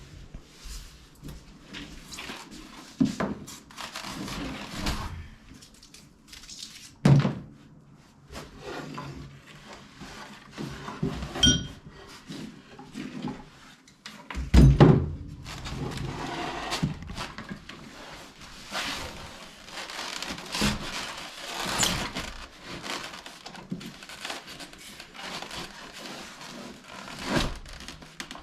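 Scattered knocks and thumps of hands-on work, with no motor running. There is a heavy thump about seven seconds in and the loudest thump about halfway through.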